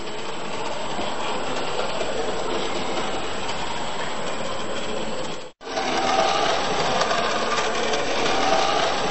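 Small electric motor of a model train running on the layout, a steady whirring. It cuts out to silence for a moment about five and a half seconds in, then returns with a steadier whine.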